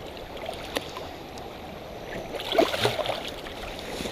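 Creek water running steadily, with a brief louder burst of splashing about two and a half seconds in.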